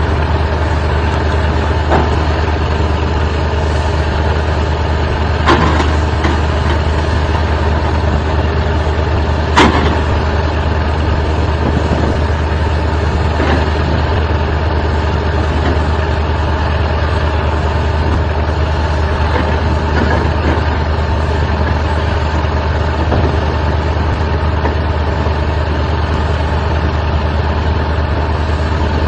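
Excavator engine running steadily with a strong low hum, with a few sharp metallic knocks over it, the loudest about ten seconds in.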